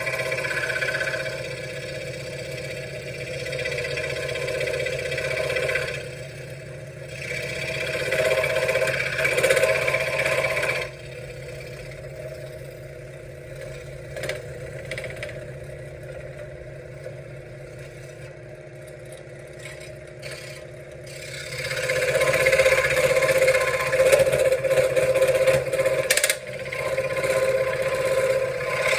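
Benchtop scroll saw running and cutting wood, its reciprocating blade making a steady chatter over the motor's hum. The cutting noise drops to a quieter run for about ten seconds in the middle, then comes back up.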